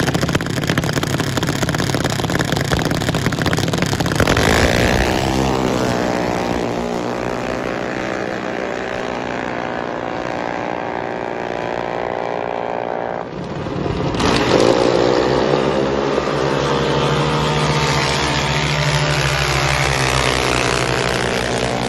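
Junior dragsters' single-cylinder engines running hard on drag-strip passes, their pitch climbing as they launch and accelerate. The sound breaks off abruptly about 13 seconds in and picks up with another pass, the engine pitch rising again.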